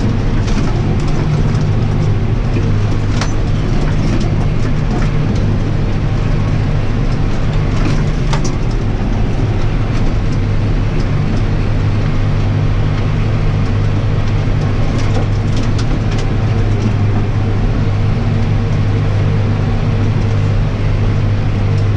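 John Deere 6125R tractor's four-cylinder diesel engine running steadily under load, heard from inside the cab as a constant low drone, with a couple of faint clicks.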